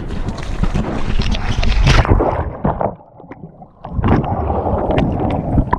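Sea water splashing and sloshing against a waterproof action camera as a swimmer moves through it, with some wind on the microphone. About three seconds in it drops away, then comes back duller and muffled as the camera goes underwater.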